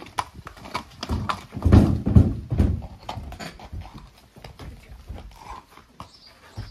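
A horse's hooves clopping and knocking irregularly as it shifts and moves about, with a louder, deeper stretch of noise about two seconds in.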